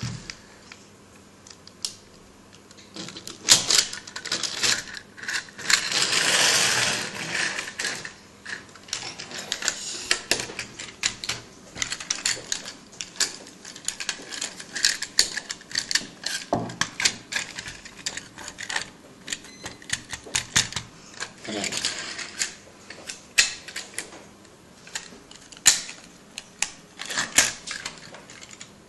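Plastic parts of a Transformers toy clicking and clattering as it is folded between robot and car form, with knocks of the toy against a wooden tabletop. The clicks come irregularly, with a longer rustling scrape about six seconds in.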